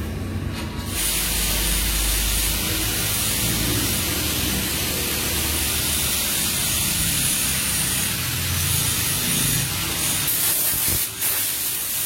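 A loud, steady hiss comes on suddenly about a second in and keeps going, over the low hum of the wheel-straightening machine.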